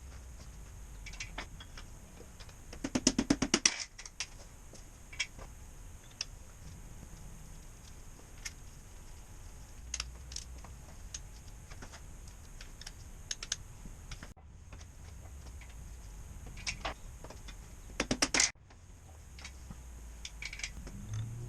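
Hand ratchet clicking in two quick runs of rapid clicks, about three seconds in and again near eighteen seconds, among scattered light clicks and taps of metal tools and engine parts being handled during assembly of an Isuzu 4BD2T diesel short block.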